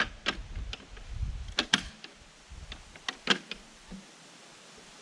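A series of sharp plastic clicks and knocks from handling the controls on a battery lawnmower's handle, about a dozen in the first three and a half seconds, with a low rumble under the first two seconds.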